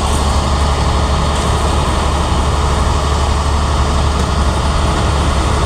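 Heavy diesel engine of a concrete mixer truck running steadily, a constant low hum with no revving.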